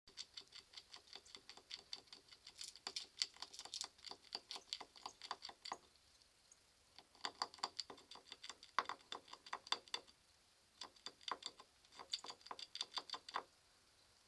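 Fox squirrel gnawing on an antler: rapid scraping clicks of its incisors on the antler, about five a second, in three bouts broken by short pauses about six and ten seconds in. The gnawing wears down the squirrel's ever-growing front teeth.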